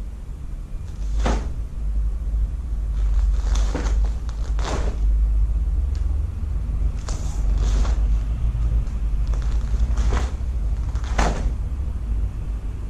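Taekwondo uniform sleeves and jacket snapping sharply with each punch and block, about seven snaps a second or two apart, over a steady low rumble.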